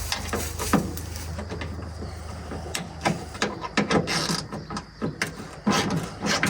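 Hand ratchet wrench clicking in short irregular runs as a bolt is worked, the clicks coming faster near the end.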